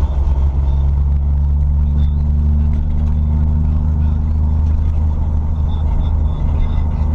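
Car driving at low speed: a steady low engine drone with tyre and road rumble. The engine tones shift slightly about two seconds in.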